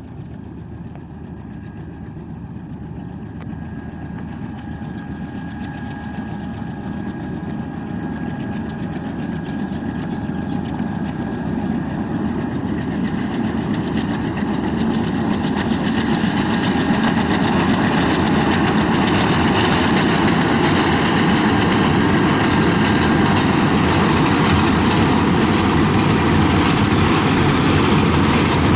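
ALCO WDM-3A diesel-electric locomotive running under power with its train, its 16-cylinder ALCO 251 engine rumbling with a faint steady whine, growing steadily louder as it approaches and then holding at full level.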